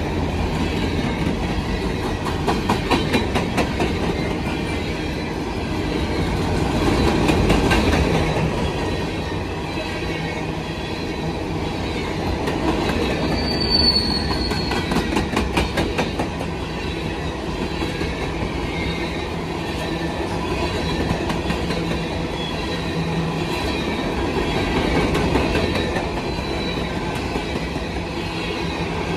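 Freight hopper cars of a long unit train rolling past close by: a steady rumble of steel wheels on rail, with runs of rapid clicking as wheels cross rail joints. A brief high wheel squeal comes about halfway through.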